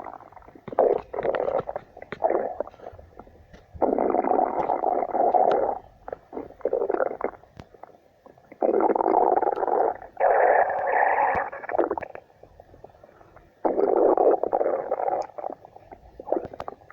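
Cartoon stomach-growl sound effect: a series of rumbles, each lasting about one to two seconds, with short pauses between them.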